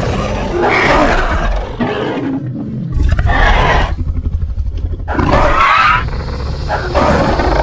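Custom dinosaur roar sound effect for an Indoraptor: a string of loud, growling roars with a deep rumble underneath, starting suddenly and swelling several times, with a rapid rattling growl in the middle.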